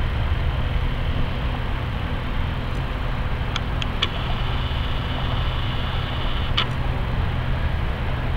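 Airbus A330's twin Rolls-Royce Trent 700 turbofans at takeoff power during the takeoff roll: a steady, deep rumble with a broad roar over it.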